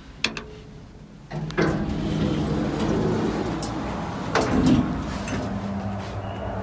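Hitachi BuildAce Quality elevator: the door-open button clicks, then a second or so later the doors start sliding open with a steady rumble and low hum, loudest about four and a half seconds in.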